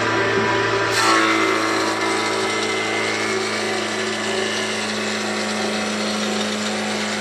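A motor running steadily. About a second in there is a click and its hum steps up to a higher pitch, then it runs on evenly.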